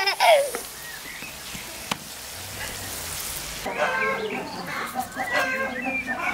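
Minced meat sizzling as it fries in a wide pan over a fire. About three and a half seconds in, the sizzle cuts off and chickens cluck in short, broken calls.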